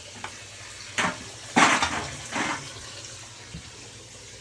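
Floodwater pumped out of a basement pouring steadily from the pump's outflow, with three short, louder bursts of noise about a second in, at about a second and a half (the loudest) and at about two and a half seconds.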